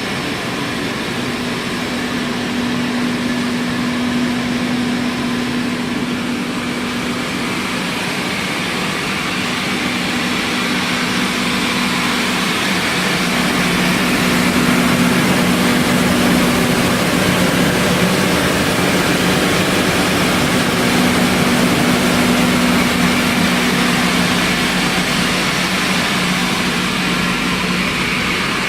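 Ginger washing machine running steadily: a constant motor hum with two steady tones over an even rushing noise.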